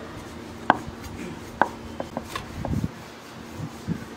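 Wooden rolling pin knocking and tapping against a round rolling board as roti dough is rolled out: a string of sharp knocks, the loudest about two-thirds of a second in, with a busier patch of softer thuds near three seconds.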